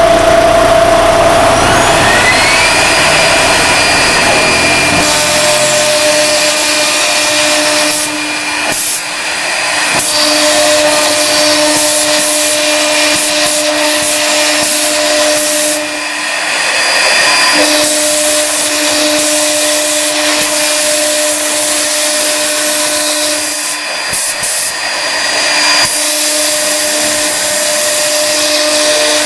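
CNC router spindle milling through acrylic sheet. A loud, steady whine over cutting hiss, rising in pitch over the first few seconds as the spindle comes up to speed. The tone breaks off briefly three times as the cut goes on.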